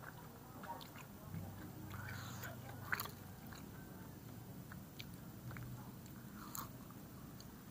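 Faint close-up chewing and biting on sate kojek, sauce-coated meatballs on a skewer, with scattered small wet mouth clicks.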